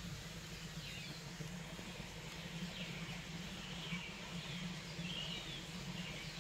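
Faint bird calls: short, falling chirps about once a second, over a low steady hum.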